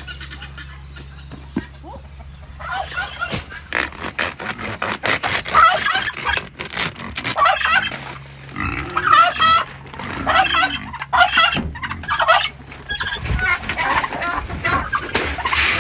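A mixed flock of domestic turkeys and chickens calling over one another, with turkey gobbles and clucking throughout. A quick run of sharp clicks or rattles sounds from about three to eight seconds in.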